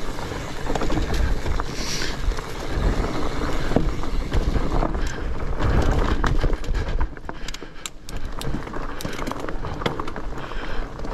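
Fat bike rolling fast downhill over a leaf-covered dirt trail: a steady rush of tyre and wind noise with a heavy low rumble on the helmet-mounted microphone, broken by many sharp clicks and rattles from the bike over bumps, thickest in the second half.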